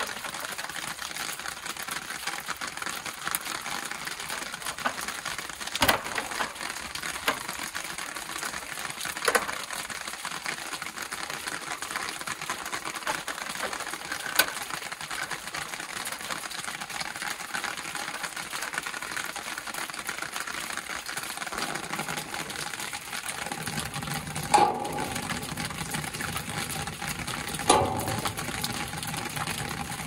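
A nut driver working the screw on an air-conditioner condensing unit's run-capacitor strap: a few sharp metal clicks over a steady hiss. A low hum comes in about three quarters of the way through, and two louder clicks follow near the end.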